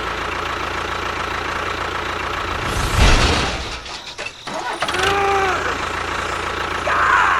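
An engine running steadily, with a loud rush about three seconds in and a short tone that rises and falls near five seconds.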